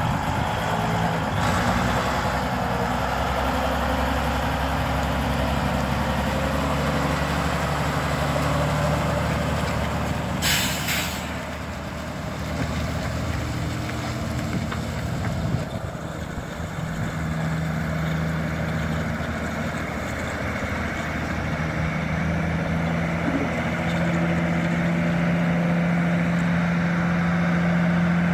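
Volvo A40E articulated dump truck's 16-litre six-cylinder diesel running under way, its steady drone fading as the truck drives off and growing louder again as it comes back. About ten seconds in there is a brief, loud hiss.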